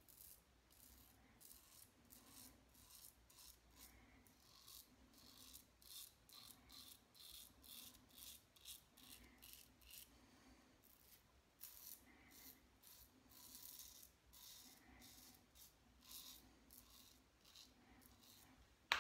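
Double-edge safety razor with a Gillette Super Platinum blade scraping through lathered whiskers on a first pass with the grain: quiet, short strokes, about one or two a second, with pauses. A single sharp knock comes right at the end.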